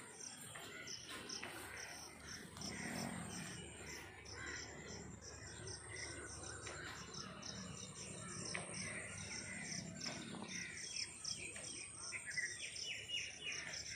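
Birds calling and chirping, crows among them, over a steady high insect chirping that pulses about three times a second. A quick run of bird calls comes near the end.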